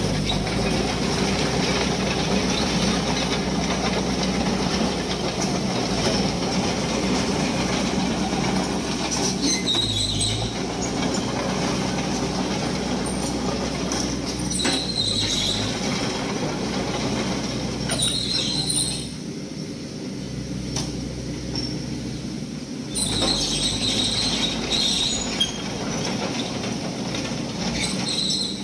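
Heavy diesel construction machinery running steadily, with several brief high squeals a few seconds apart. The hum drops a little for a few seconds past the middle, then picks up again.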